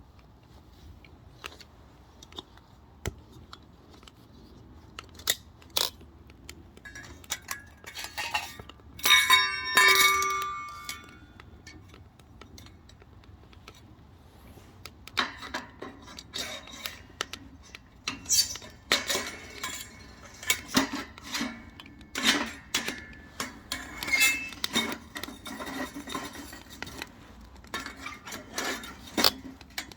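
Metal clinks and clanks of a wood stove's steel parts and fire tools being handled. One loud ringing metal strike comes about nine seconds in, followed later by a dense run of sharp clicks and knocks.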